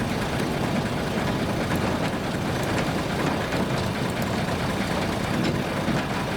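Narrow-gauge forest railway train running: the locomotive's engine drones steadily, with the rattle of the cars on the track.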